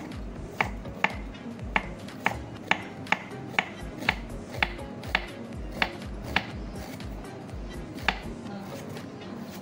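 Cleaver chopping shallots on a thick round wooden chopping block: a dozen or so sharp knocks about twice a second, pausing near the end before one more knock.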